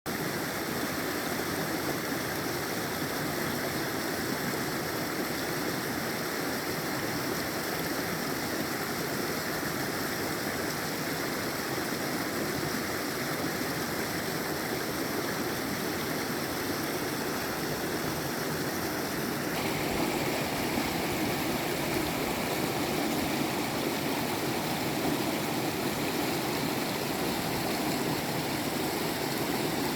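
Waterfall water rushing and splashing steadily. About twenty seconds in, the rush changes tone and grows slightly louder.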